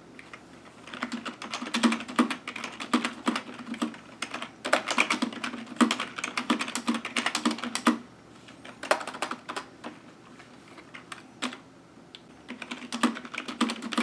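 Typing on a Fantech Hunter K10 membrane keyboard: fast runs of key clacks, not too noisy. The typing thins to a few scattered keystrokes about eight seconds in, then picks up again near the end.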